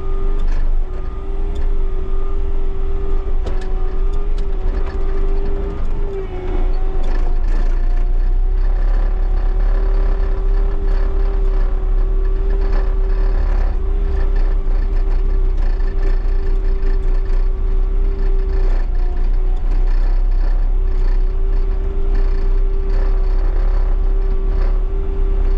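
Bobcat T77 tracked skid steer's diesel engine running steadily while the machine drives, with a continuous high whine that drops out briefly a couple of times, and occasional short clanks.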